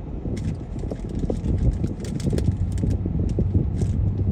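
Road noise heard inside a moving car: a steady low rumble from the tyres and engine, with scattered light clicks and ticks over it.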